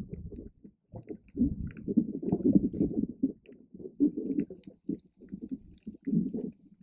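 Muffled underwater noise through a GoPro's waterproof housing just below the surface: irregular low rumbling and sloshing of water moving around the camera in uneven surges, with faint scattered clicks above it.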